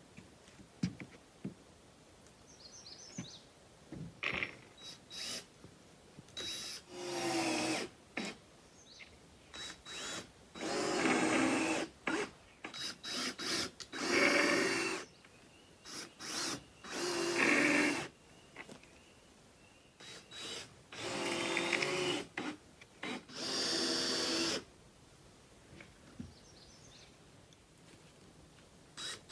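Cordless drill/driver driving screws down into a plywood deck, its motor whining in short runs of about a second each, several in a row, with small clicks and taps between.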